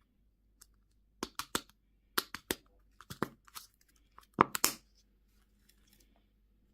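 Candy or toy wrapper being torn and crinkled open in four short bursts of sharp crackling, the last the loudest.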